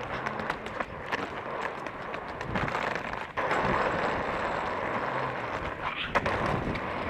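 Footsteps on a paved pavement with street noise, heard from a camera worn by the walker: a steady hiss with small irregular clicks and knocks.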